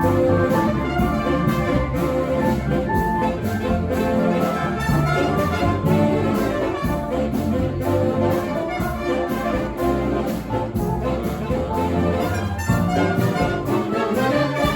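A live brass street band playing a blues number, with horns over a steady drum beat. The band stops together on the final note at the very end.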